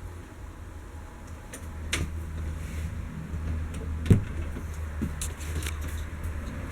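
Low steady rumble with scattered clicks and knocks, the loudest a sharp thump about four seconds in.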